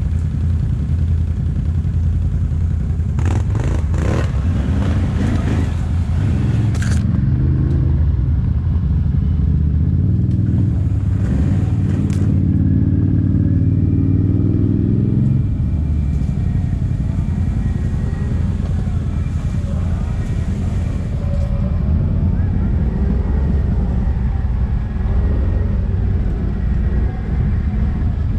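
ATV engine running while riding, pulling harder with a rising pitch for several seconds in the middle, then easing off about fifteen seconds in. Short rushing noises come a few seconds in and again near twelve seconds.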